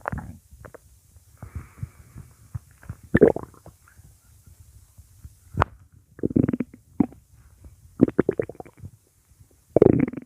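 A person's stomach growling: a string of irregular, thunder-like gurgling rumbles that come in separate bursts with short gaps between them, the loudest near the end. A single sharp click sounds about halfway through.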